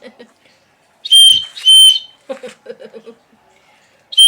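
A whistle blown in two short, shrill blasts about a second in, each a steady high tone lasting roughly a third of a second.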